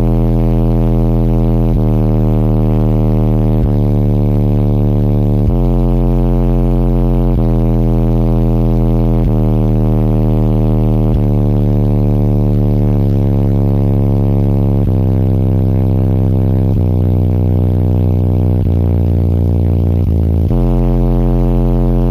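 Very loud bass music through six Resilient Sounds Platinum 15-inch subwoofers in a car: deep sustained bass notes that change pitch about every two seconds.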